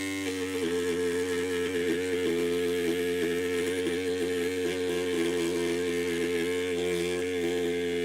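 Background music of sustained, droning tones held steady, with no clear beat.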